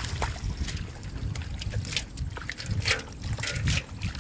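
Wet mud squelching and splashing in short bursts as hands dig through a waterlogged field, with wind rumbling on the microphone.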